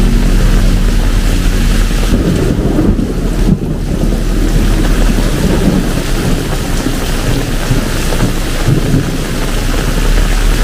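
Heavy tropical downpour: a loud, steady hiss of rain with low rumbling wind buffeting on the microphone.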